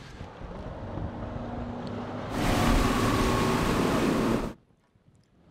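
Bass boat outboard motor running and growing louder, then a loud stretch of engine, rushing water and wind as the boat runs at speed. The sound cuts off abruptly near the end.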